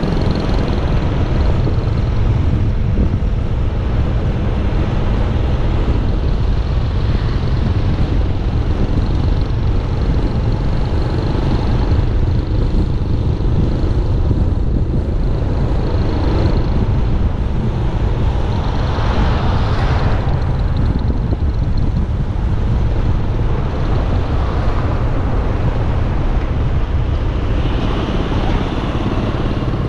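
Steady low wind rumble and road noise from a motorcycle riding at speed, with a brief louder swell about two-thirds of the way through.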